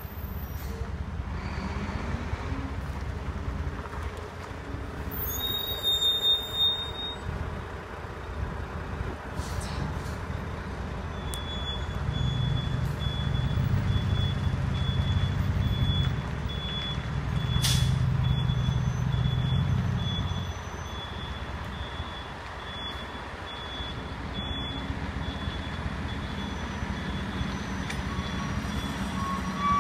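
Engine of an International hi-rail welding truck running as it moves along the rails toward the crossing, revving up twice for a few seconds each time. Through the middle a high warning beeper sounds in a steady repeating pattern, and there is one sharp crack a little past halfway.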